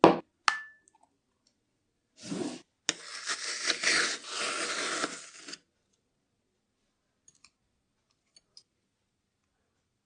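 Kitchen handling sounds: a sharp knock, then a second one with a short ringing clink, followed by about three seconds of rough scraping, and a few faint ticks near the end.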